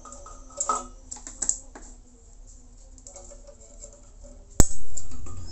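Cable and plastic handling on a PowerBeam M5-400 dish as an Ethernet cable is pushed into its radio's port: light scattered clicks and rustles, then a sharp click about four and a half seconds in, followed at once by a loud low thump that fades away.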